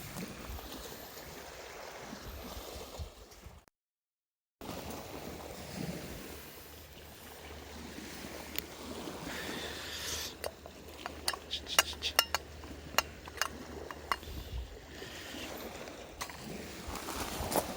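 Small wood campfire burning, with a steady hiss and a burst of sharp, irregular crackles and pops in the second half. There is a brief silent gap a little under four seconds in.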